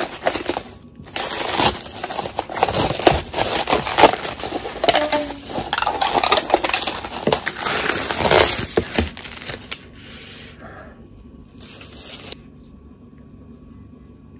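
Plastic cling wrap peeled off a takeout bowl and crumpled by hand: dense crinkling and crackling that stops about two-thirds of the way through.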